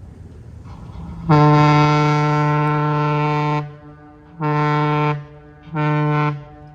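Steam whistle of the 1942 lake freighter Alpena blowing a salute: one long blast, then two short blasts, each a steady low, many-toned note that stops sharply.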